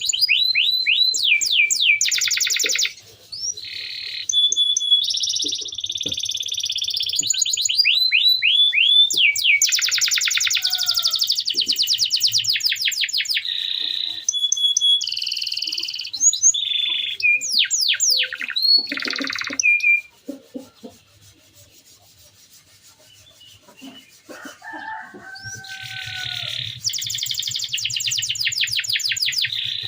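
Male domestic canary singing its rolling song: long fast trills and runs of quick falling whistled notes, with a few seconds' pause about two-thirds of the way through before the song starts again.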